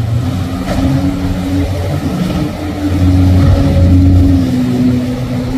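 Mangusta 72 motor yacht's engines running at speed with a steady drone, together with the rush of water off the hull as it pushes through the inlet waves. The low rumble grows louder about three seconds in.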